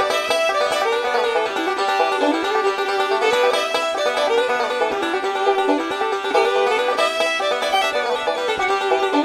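Upbeat background music led by a plucked banjo, in a bluegrass or country style.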